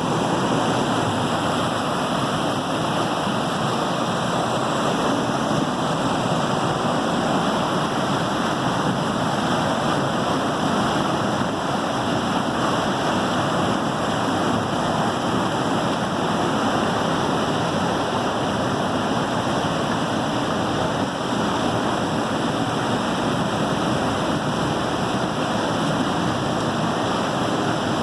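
Water rushing and splashing steadily at a waterwheel, an even, unbroken wash of falling water.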